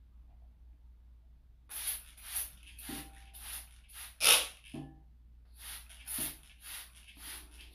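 Fine-mist plastic trigger spray bottle squirting water onto orchid roots in a glass vase: short hissy sprays about two a second, with a brief pause about five seconds in.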